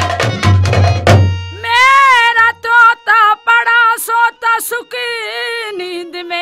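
Fast hand-drum strokes over a sustained instrumental drone stop abruptly about a second in. A woman then sings a drawn-out, wordless melodic line in folk-theatre style, her pitch bending and wavering in long held phrases.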